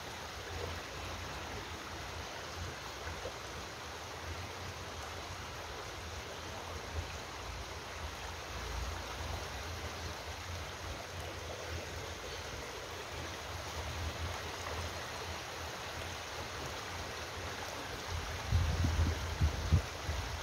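Steady rushing of flowing stream water, with low buffeting on the microphone near the end.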